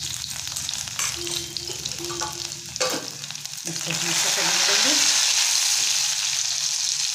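Finely chopped garlic and ginger sizzling in hot ghee in a kadhai, with a spatula stirring and clicking against the pan. The sizzle grows louder about four seconds in.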